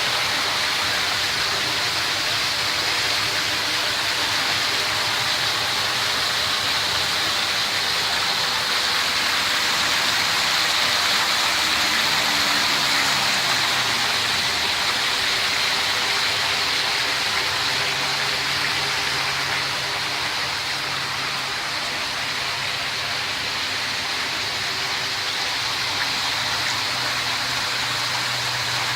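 Steady rushing noise like running or spraying water, with a low hum coming in about two-thirds of the way through.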